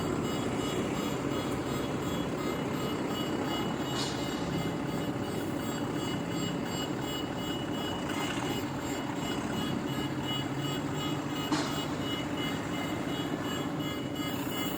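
Heavy diesel engine of a concrete pump truck running steadily as the truck is maneuvered onto a trailer.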